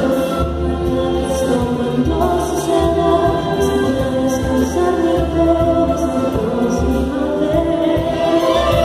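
Live orchestral music: women's voices singing sustained notes over a string orchestra with violins bowing and woodwinds.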